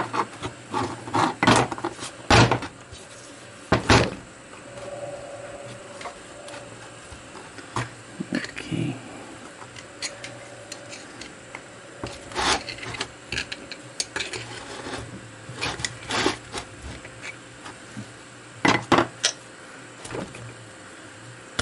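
Irregular metallic clinks, scrapes and knocks from a small three-jaw lathe chuck being handled on a wooden bench during disassembly, with a screwdriver worked inside it. A few knocks are much louder, with a quick cluster of them near the end.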